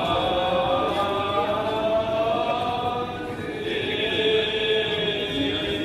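Greek Orthodox liturgical chant sung by a priest during the feast-day service: a slow melody of long held notes.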